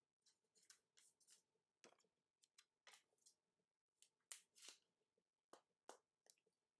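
Near silence with faint, scattered clicks and rustles of trading cards and card packaging being handled, the loudest a little past four seconds in.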